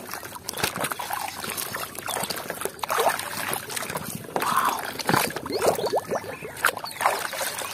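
Muddy water sloshing and splashing in a plastic tub as a toy is scrubbed and swished about by hand, in irregular uneven splashes.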